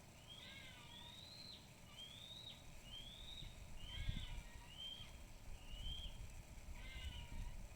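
An unidentified animal in the trees making short, rising screeching calls over and over, about one a second, with a few lower, harsher notes mixed in. A low rumble swells about four seconds in.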